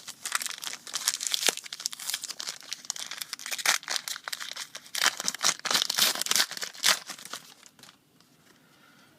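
Wrapper of a basketball trading-card pack crinkling and tearing as it is opened and handled, a dense run of crackles that stops about eight seconds in.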